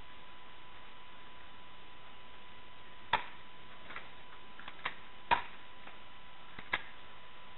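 Airsoft gunfire: four sharp snaps at uneven intervals, the loudest a little over five seconds in, with a few fainter clicks between them. A faint steady high tone runs underneath.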